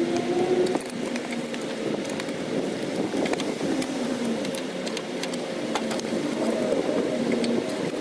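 Steel tire irons clicking and scraping against the steel wheel rim as a tractor tire bead is pried over it, a scatter of sharp metal clicks over a steady, wavering low hum.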